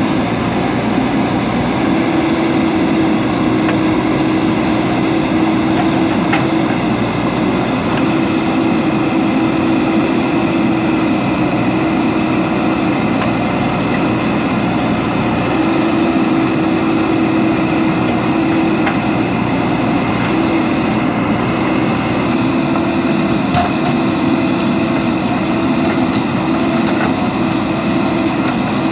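JCB 3DX backhoe loader's four-cylinder diesel engine running under load while the backhoe arm digs soil. A steady pitched hum comes and goes in stretches of a few seconds as the digging arm is worked.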